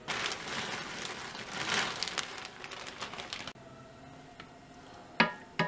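Crinkling, rustling plastic packaging, handled for about three and a half seconds while shredded cheese goes onto the lasagna, then two sharp knocks near the end.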